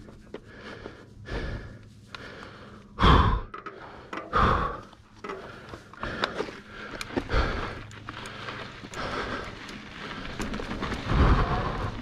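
A mountain biker's heavy breathing and sighs close to the microphone, with two loud rushes of noise about three and four and a half seconds in.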